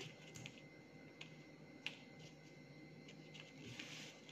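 Faint small snaps of green chilli stems being pinched off by hand: a few scattered clicks, the sharpest a little under two seconds in, over a faint steady hum.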